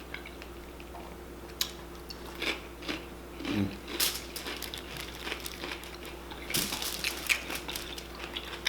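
Close-miked eating: biting into and chewing chicken wings, with scattered crunches and mouth clicks that bunch up about four seconds in and again near the end.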